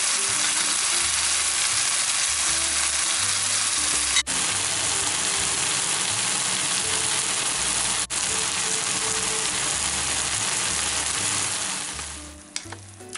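Mushrooms, onion and zucchini pulp with crushed tomato frying in a non-stick pan: a steady, loud sizzle that cuts out for an instant twice. Near the end the sizzle falls away to a quieter hiss with a few light clicks.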